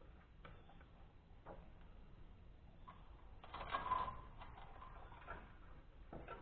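Light clicks and taps of metal parts being handled, with a short clatter and a brief ring about three and a half seconds in.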